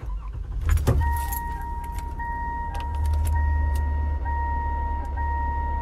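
A car's dashboard warning chime sounds steadily over a low engine rumble, after a few clicks and a jingle of keys in the first second.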